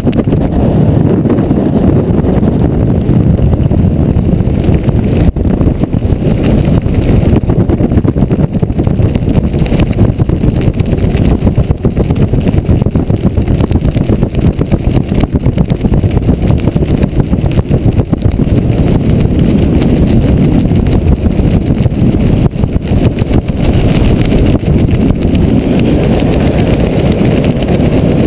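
Loud, steady wind rumble buffeting the microphone of a camera during a descent under an open parachute canopy.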